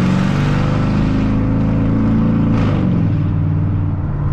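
Mercedes W210 E55 AMG's 5.4-litre V8 pulling under acceleration, its pitch rising, then dropping about two and a half seconds in at a gear change and running on steadily.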